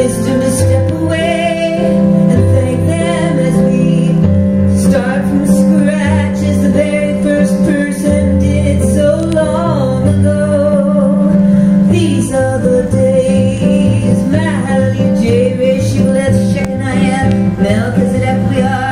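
A woman singing live into a microphone, accompanied by her own Roland keyboard, with sustained low chords under a wavering vocal line.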